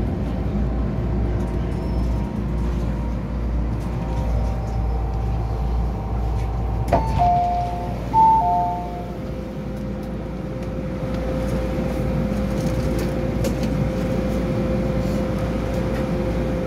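MTR M-Train's rumble dying down as it stops at the platform, then about seven seconds in a click and a two-tone door chime sounding twice, high then low, as the doors open. A steady hum follows while the train stands.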